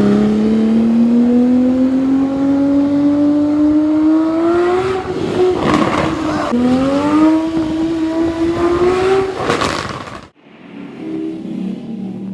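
Porsche 987 Cayman S flat-six accelerating hard, its pitch rising steadily for about five seconds, then a gear change with a burst of crackle and a second rising pull of about three seconds. Exhaust pops and crackles as the throttle closes, then the engine suddenly drops to a much quieter low hum near the end.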